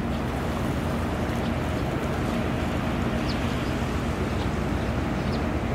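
Steady low rumble of ship machinery in the harbour, with a faint steady hum over it.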